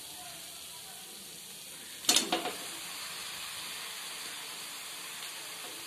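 Spice paste sizzling steadily in a metal kadai, fried until its oil has separated. About two seconds in there is a short clatter and thump as boiled jackfruit pieces are tipped into the pan, and the sizzle is a little louder afterwards.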